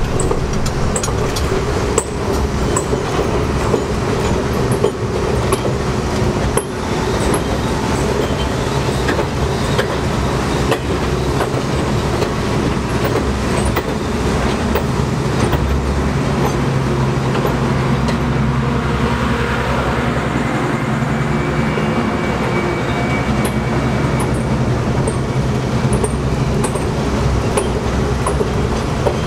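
R42 subway train running on elevated track: a steady rumble and hum with frequent clicks and rattles as the wheels pass over the rails, and a faint high squeal around two-thirds of the way through.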